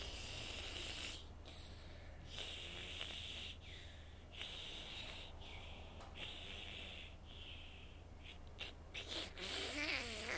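Slow, hissing breaths in and out, roughly one a second, from the throat-parasite creature or the sick young man facing it. Near the end comes a short wavering voiced croak.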